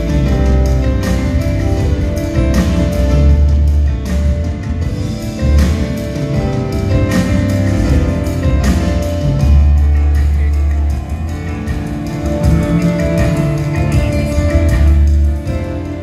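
Live instrumental band passage with no singing: grand piano over deep sustained bass notes and drums, recorded from the audience in a concert hall.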